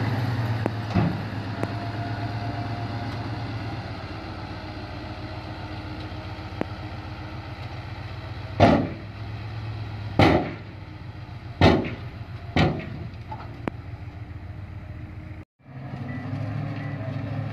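Nissan Diesel V8 dump truck engine running steadily while the raised body unloads soil, with four sharp bangs from the truck about halfway through. The sound drops out for a moment near the end.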